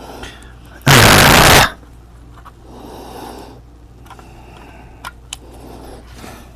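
A short burst of hissing air from an airbrush spraying, lasting about three-quarters of a second and starting about a second in, followed by a few faint handling clicks.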